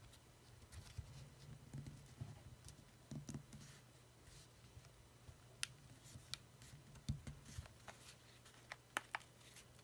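Faint handling noise of a phone being pressed into a tight-fitting black phone case: scattered small clicks and scuffs as the case edges are worked over the phone's corners, coming more often in the second half.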